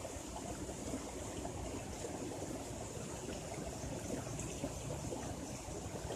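Steady rushing of water, with a faint high hiss above it.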